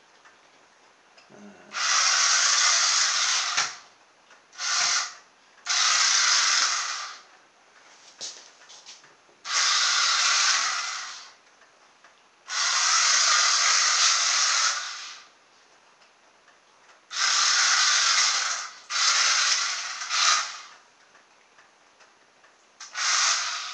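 Small electric motors and plastic gearing of a cheap toy RC car, wired straight to push buttons, running in short bursts as the buttons are pressed. There are about eight bursts, each from half a second to two and a half seconds long, with near silence between.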